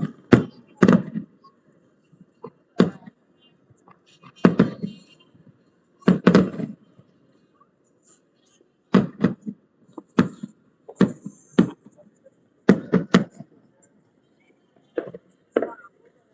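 Fireworks going off: a string of sharp booms at irregular intervals, some in quick pairs, each dying away briefly.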